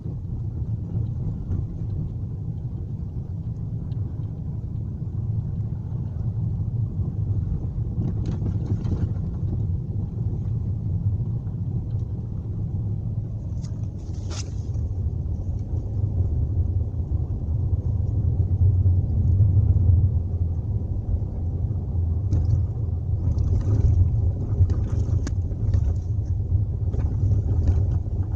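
Car driving with a steady low road and engine rumble, and scattered knocks from the suspension, one sharp knock about halfway through and several more toward the end. The knocking is the fault being recorded: a worn suspension part.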